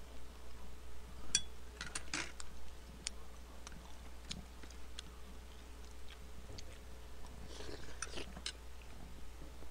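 A metal spoon clinking and scraping against a glass bowl, a cluster of sharp clicks about a second and a half in and again near eight seconds, with quiet chewing between.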